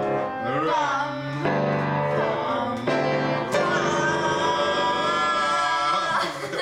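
Singing over upright piano chords, the chords struck anew every second or two, the voice ending on one long held note. It breaks off near the end as the singing turns to laughter.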